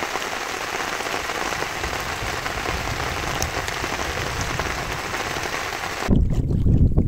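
Steady rain pattering on a surface, with a few faint drop ticks. About six seconds in it cuts off abruptly, giving way to a louder low rumble of wind on the microphone.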